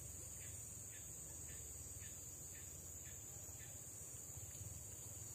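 Faint, steady high-pitched drone of forest insects over a low steady rumble. A fainter short chirp repeats about twice a second and stops a little past halfway through.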